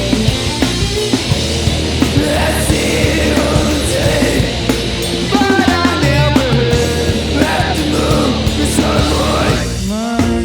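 Heavy rock band playing loud, with distorted guitars, bass and drums. About a second before the end the drums and dense playing drop away, leaving one held, ringing guitar chord.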